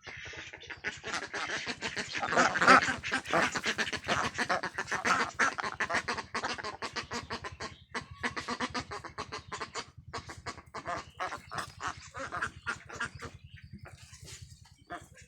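A flock of Khaki Campbell ducks quacking, many calls overlapping in a rapid clamour. It is loudest about two to three seconds in, then thins to sparser quacks in the second half.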